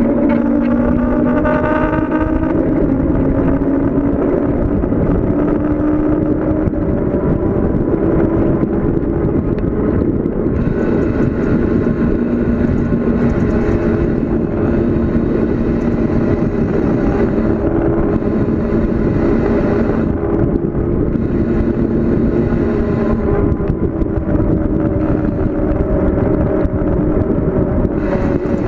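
Steady rush of wind and road noise from a fast downhill bicycle ride, with a humming tone that slowly rises and falls in pitch.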